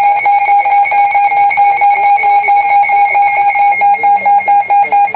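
Emergency alert attention tone: a loud, steady high-pitched tone with a rapid, regular flutter in its loudness.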